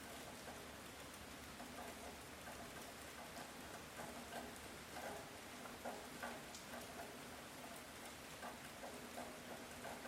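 Light rain falling: a steady, faint hiss with many scattered drops ticking at irregular moments.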